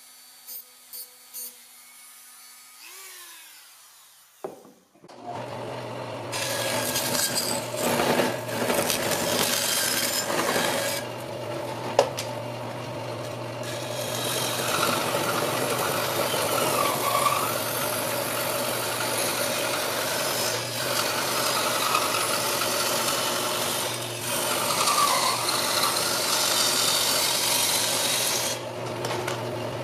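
A bandsaw starts about five seconds in, and its freshly sharpened blade resaws a thick slab of hardwood, a steady loud rasp over the machine's hum. The cut ends shortly before the saw shuts off. The first few seconds hold only a faint hum and a few ticks.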